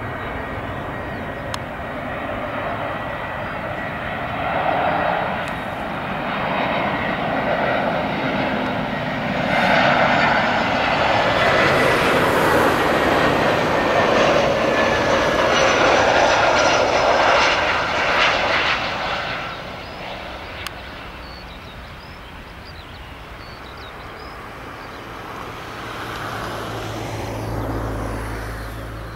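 Airbus A321 airliner's jet engines on final approach, growing louder as it passes close by, with a high whine that drops in pitch, then fading away. Near the end a low rumble comes in as the main wheels touch down.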